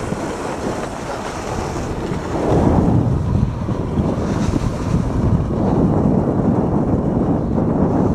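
Steel runners of an ALS Supersport luge scraping and hissing over a packed-snow toboggan run, with wind buffeting the microphone. The scraping gets louder about two and a half seconds in.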